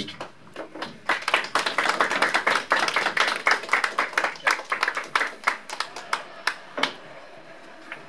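A small group of people clapping in a small room. The clapping starts about a second in, thins out and stops about seven seconds in.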